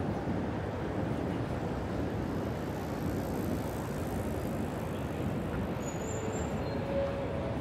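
Steady city street background noise, a constant hum of road traffic, with faint short tones near the end.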